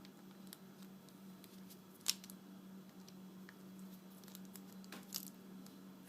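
Faint scattered clicks and light handling noises of an LED light bulb being taken apart with small tools, with two sharper clicks about two seconds in and about five seconds in. A low steady hum runs underneath.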